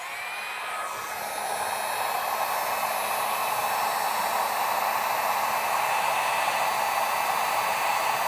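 Drillmaster heat gun running: a steady rush of blown air with a faint motor hum. It has just been switched on, so the pitch rises as the fan spins up and the rush grows louder over the first couple of seconds before holding steady.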